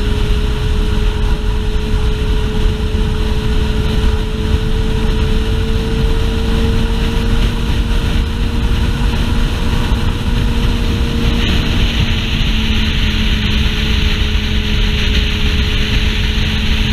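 Suzuki GSX-R sportbike's inline-four engine running at steady cruising revs, its hum rising slightly in pitch and then easing off a little past the midpoint, under heavy wind rumble on the helmet-mounted microphone.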